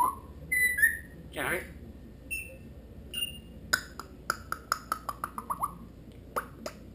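African grey parrot vocalizing: a few short whistles and chirps, then a quick run of about a dozen clicks, roughly five a second, falling slightly in pitch, and two more clicks near the end.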